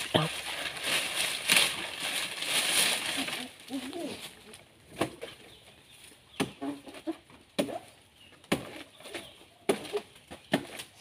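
Dry banana leaves rustling and crackling as a man climbs through them. The rustling fades about three seconds in, and after that come sharp single knocks about once a second.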